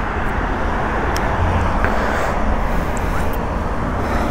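Motorcycle engine idling steadily at a standstill, with road traffic passing.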